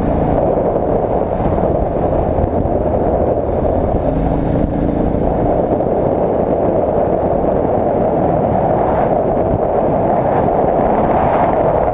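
Adventure motorcycle running at a steady cruising speed on a gravel road, its engine note mixed with steady wind rush on the camera microphone.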